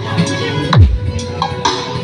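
Electronic dance music played through a sound-check PA system, with a deep falling bass hit a little under a second in over a steady beat.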